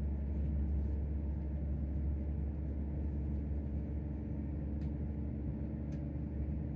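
Cabin sound of a Chiltern Railways Class 168 diesel multiple unit running at speed: a steady low drone from its underfloor diesel engine with wheel and rail noise. Two faint ticks come near the end.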